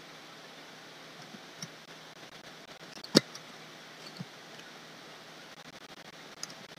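Faint steady background hiss with a few soft, short clicks from desk work at a computer, the sharpest about three seconds in.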